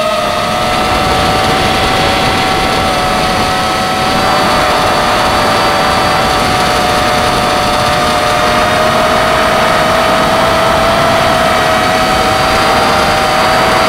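Quadcopter's electric motors and propellers whining steadily in flight, heard from the camera on the craft, over a rush of air noise. The whine shifts a little in pitch as the throttle changes, rising slightly about a second in.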